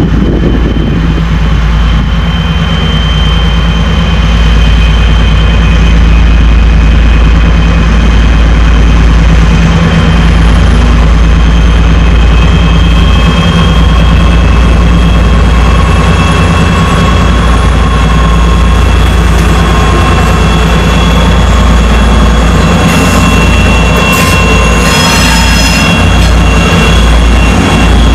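2M62 twin-section diesel locomotive's two-stroke V12 diesel engines running as it hauls a loaded freight train past, with a steady high squeal of wheels on the rails over the low rumble.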